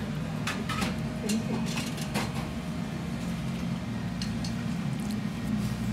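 Ramen shop background: a steady low hum with scattered light clinks and clatter of tableware.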